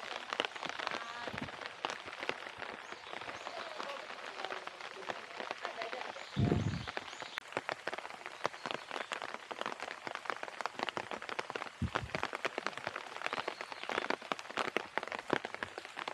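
Steady rain, many small drops striking close by in an irregular stream of ticks. Two short low thumps come about six and twelve seconds in.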